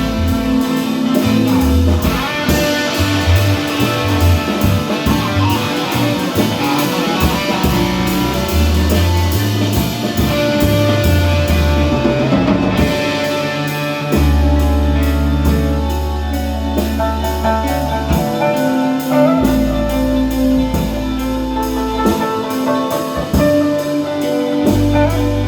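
Music with drums, bass and horns in a jazz style, playing steadily.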